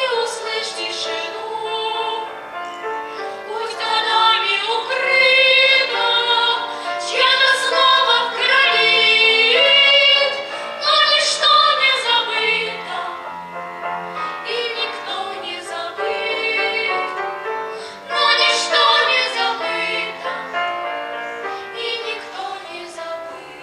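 Children's vocal ensemble singing a song in unison-like chorus with piano accompaniment.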